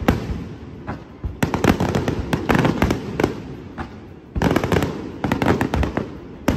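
Aerial fireworks bursting overhead: two volleys of rapid sharp bangs and crackling, the first starting about a second and a half in and the second a little past four seconds, with a low rumble between them.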